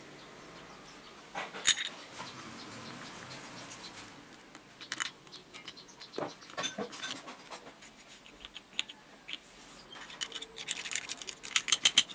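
Small metal parts of a jigsaw's reciprocating mechanism clicking and tapping in an aluminium gear housing during reassembly, with one sharp click just under two seconds in, and a screwdriver driving the small screws. Near the end comes a rapid run of scratchy strokes as grease is brushed into the housing.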